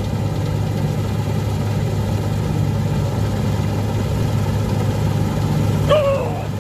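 Combine harvester running steadily while cutting a standing cereal crop: a constant low engine drone with the hum of the working machinery.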